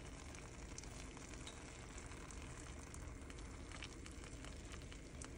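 Butter melting in a frying pan over the burner, sizzling faintly and steadily, with a few faint clicks of a fork against the pan.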